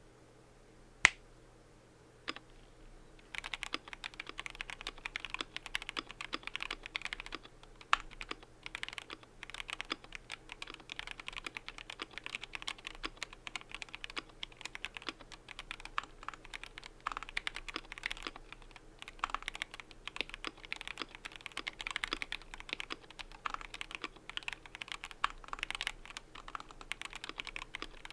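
Typing on a KBD67 Lite mechanical keyboard with stock Tealios V2 linear switches and ePBT keycaps. Two single keystrokes come in the first few seconds, then steady, fast typing.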